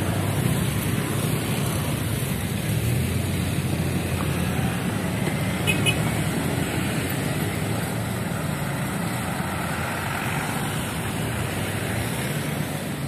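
Steady road traffic: motorcycle, car and bus engines running and moving off over a railway level crossing. A short, sharp high-pitched sound stands out about six seconds in.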